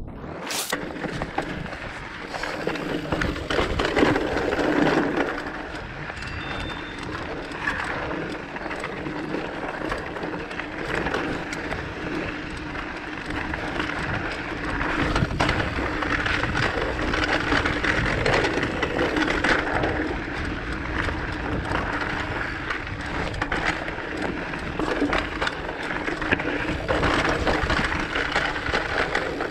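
Rockrider mountain bike rolling over rocky singletrack: a continuous rush of tyres on stones and gravel, with many small knocks and rattles from the bike over the bumps.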